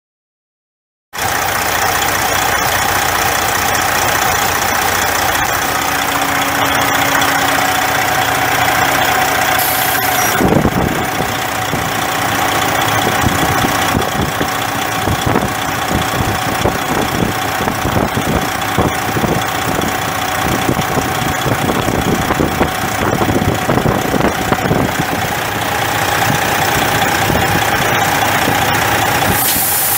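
Detroit Diesel Series 60 14.0-litre inline-six turbo diesel of a 2007 Freightliner Columbia semi truck idling steadily, heard from about a second in. There is one brief knock about ten seconds in.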